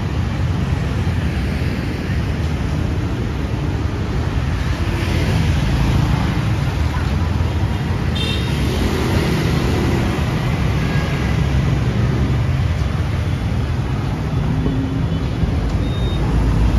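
Steady city street traffic noise, dense and continuous, heaviest in a low rumble.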